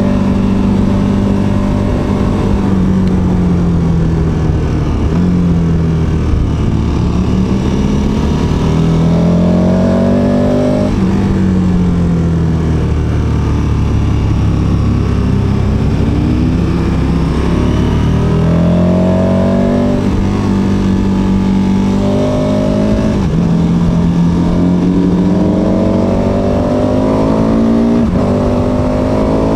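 KTM 1290 Super Adventure S's V-twin engine heard on board while riding, its revs climbing and dropping again and again as the bike accelerates out of bends and slows into them, with wind rush on the microphone.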